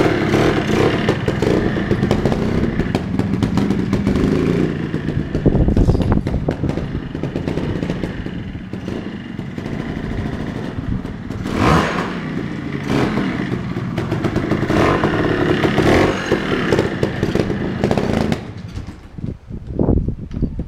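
Montesa Cota 260 trial bike's rebuilt two-stroke single-cylinder engine pulling away in gear and running under load, with sharp rises in revs about halfway through. It gets quieter and choppier near the end as the bike moves off.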